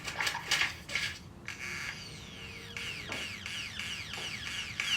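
Great-tailed grackle calling: a burst of dry, rattling clicks, then a long run of quick whistles that each slide down in pitch.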